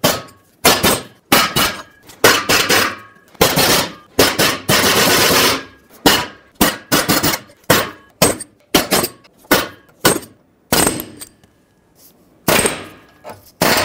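Pneumatic air chisel hammering in short rattling bursts, with one longer burst about five seconds in, against the rusted-out bolts of an exhaust pipe flange to snap the corroded hardware off.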